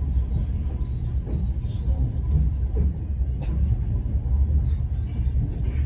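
Moving passenger train heard from inside an open-plan sleeping carriage: a steady low rumble from the running gear, with a few sharp knocks, the clearest about three and a half seconds in.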